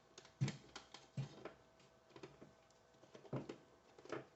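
Irregular light clicks and knocks of cable leads being handled and unwound from the portable compressor's wire reel, over the faint steady hum of a power inverter's cooling fan.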